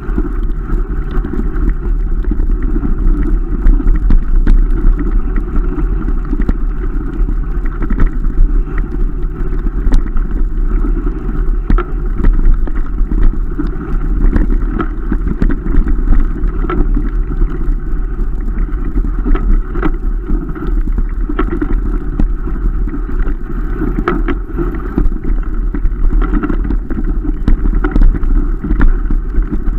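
Mountain bike descending a rough dirt trail, heard from an onboard camera: a steady low rumble of tyres and rushing air with frequent sharp knocks and rattles as the bike hits bumps.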